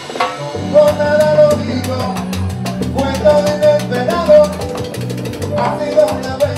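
Live Cuban salsa (timba) band playing, with drum kit and percussion keeping a steady beat under a sung lead melody. The low end drops out for a moment at the very start, then the full band comes back in.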